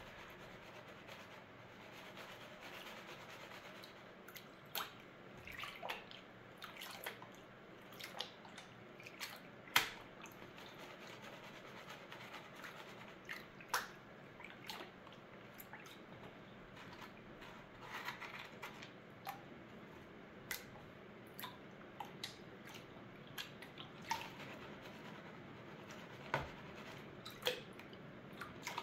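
Gold panning in a plastic gold pan over a tub of water: quiet swishing and sloshing as the pan is swirled and dipped, with irregular sharp drips and clicks of water and gravel, a few every second.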